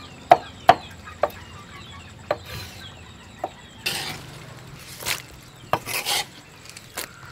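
A cleaver chopping lotus shoots on a wooden chopping board: single sharp knocks at irregular intervals, about seven in all. Between them come a few short rustling scrapes as the cut stalks are gathered and moved into a metal bowl.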